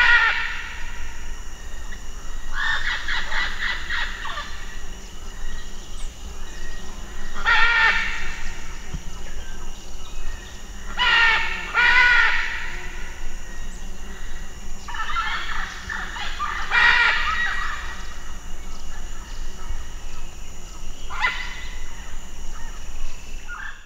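Blue-and-yellow macaws squawking harshly in bouts of a second or two, about six bouts a few seconds apart. A steady high thin tone runs underneath.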